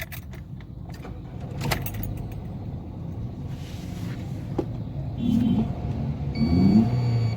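Toyota Corolla GLI engine running unevenly with a misfire, not picking up revs; the cause is a dead ignition coil on cylinder number 3. A few sharp clicks sound over the running engine.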